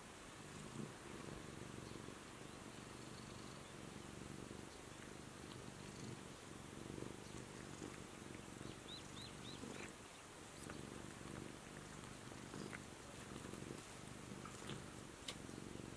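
Domestic cat purring steadily and quietly, with faint small licking clicks as the cats groom.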